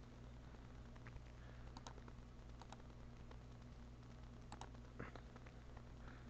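Near silence: faint, scattered clicks of a computer mouse and keyboard, a few at a time, over a steady low hum.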